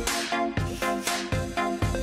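Background electronic music with a steady beat, about four beats a second.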